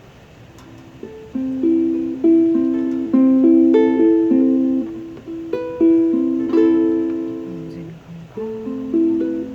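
Ukulele played slowly, starting about a second in with plucked notes and gently strummed chords at an unhurried pace, with a brief pause near the end before the next phrase.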